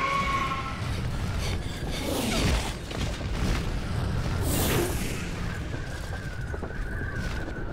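Action-cartoon sound effects: a steady low rumble with two whooshes as flying creatures swoop past, about two seconds in and again about four and a half seconds in.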